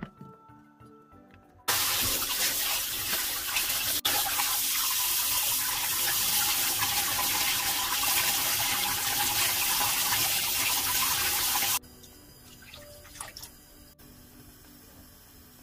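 Kitchen tap running hard into a stainless steel bowl of chicken pieces in a sink while they are rubbed clean by hand; the water sound stops abruptly about twelve seconds in. After it, a much fainter sound of chicken boiling in a pot.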